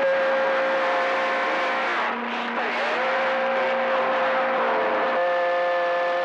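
CB radio on channel 28, AM, with several carriers on the frequency at once: static hiss with steady overlapping whistle tones, one briefly swooping in pitch about two and a half seconds in, and the set of tones changing near the end.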